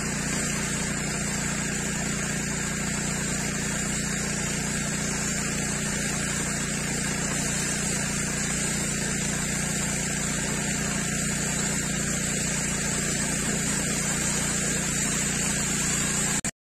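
Pressure washer running steadily, its motor or pump humming under the hiss of the water jet on the paving; it cuts off suddenly near the end.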